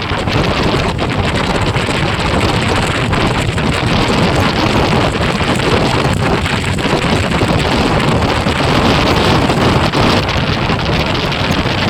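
Wind rushing over the microphone of a moving motorcycle: a loud, steady roar of wind noise.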